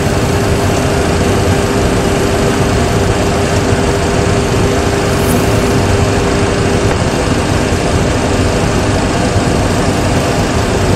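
Boeing 737 Classic full flight simulator's cockpit sound: the steady engine and airflow noise of a climb after takeoff, with a steady hum running through it.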